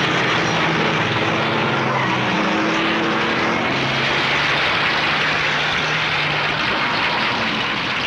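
Several cars' engines running hard in a race, a dense steady din with engine tones that shift in pitch.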